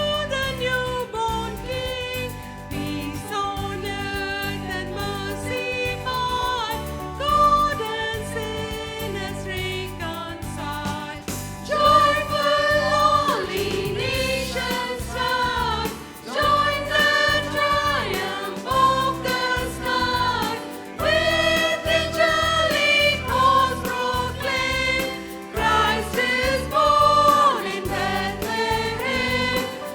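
Tamil Christian Christmas song sung by a choir over instrumental backing; the music grows louder and fuller about twelve seconds in.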